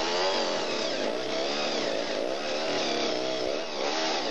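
Gas chainsaw with a long bar running at high throttle buried in the cut through a very large tree trunk. Its engine pitch keeps dipping and recovering as the chain loads up in the wood.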